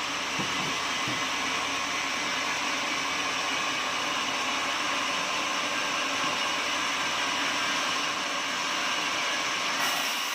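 Sawmill machinery running with a steady, continuous whirring noise.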